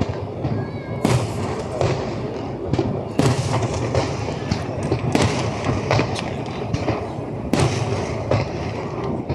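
Aerial fireworks bursting in a dense barrage: many booms and bangs, several a second, over continuous crackling and rumbling.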